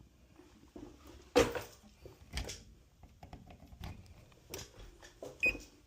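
Irregular knocks and clatter of handling, loudest about a second and a half in, then a short electronic beep near the end from a button being pressed on a Chamberlain garage door opener to start setting its travel limits.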